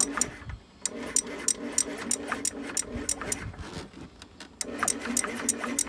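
Small scooter engine turning with a hum and a sharp click about three times a second. It drops out briefly twice and picks up again.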